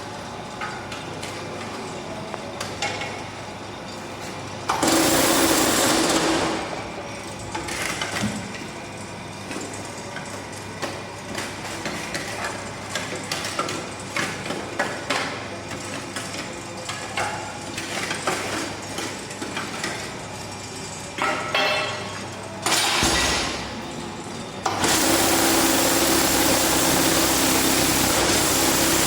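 Concrete block press machine on a test run: a motor runs steadily under irregular metal knocks and clanks. Twice there is a long, much louder buzzing spell, about five seconds in for over a second and again for the last few seconds.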